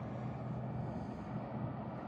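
Steady low engine drone of a vehicle, holding an even pitch with a slight dip about a second and a half in.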